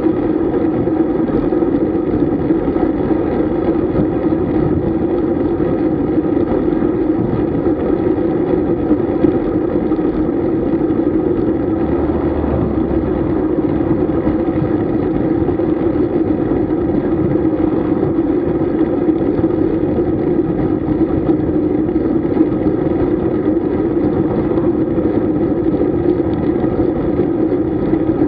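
Steady rush of wind and tyre noise from riding a road bike at speed, a constant drone with no breaks.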